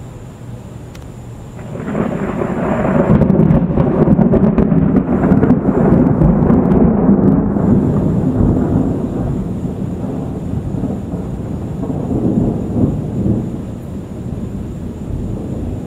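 Thunder from a dry thunderstorm with no rain falling. A long, deep rumble builds about two seconds in and is loudest for several seconds. It then slowly rolls away with a few smaller swells.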